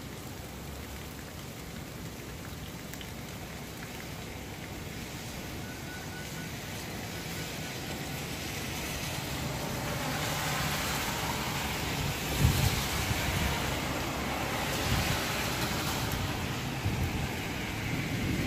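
Steady rain that grows heavier about halfway through. Low rumbles of thunder come in over it in the second half, with a sudden jolt about two-thirds of the way through.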